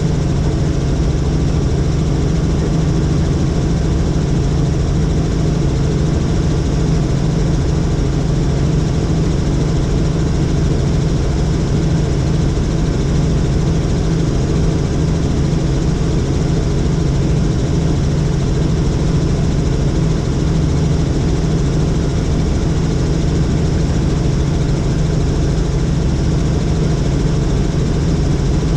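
Helicopter in flight, heard from on board: its engine and rotor running steadily with a loud, constant low hum and no change in pitch.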